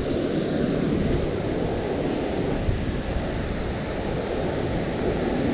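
Steady rush of water released through a dam's spillway gates, with wind buffeting the microphone.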